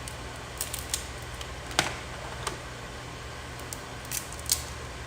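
Crab leg shells cracking and snapping apart: a string of sharp, irregular cracks and clicks, the loudest a little under two seconds in.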